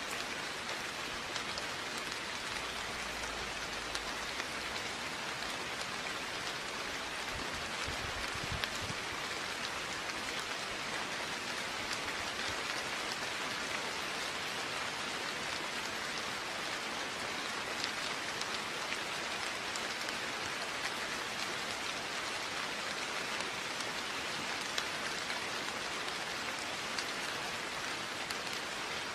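Steady rain falling, an even hiss of rainfall with individual drops ticking here and there.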